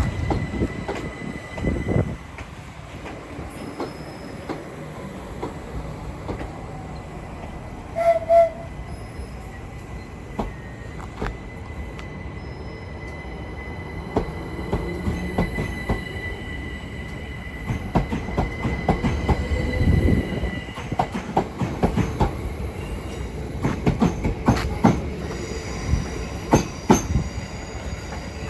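A train moving through a railway station: a low rumble with repeated knocks of wheels running over rail joints and points, and a thin, steady wheel squeal.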